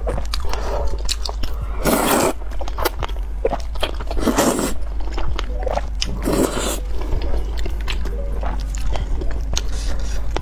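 Noodles in soup slurped up in three loud slurps a couple of seconds apart, with wet chewing and small mouth clicks in between.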